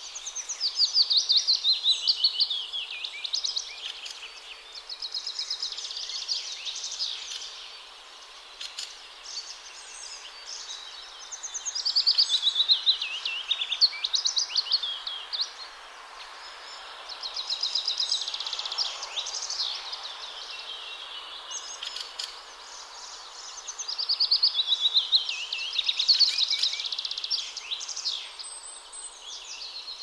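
Songbirds singing at dawn, in loud phrases of rapid trills and chirps, each a few seconds long, repeating about every six seconds with short pauses between. Under the song is a faint, steady hum of distant traffic.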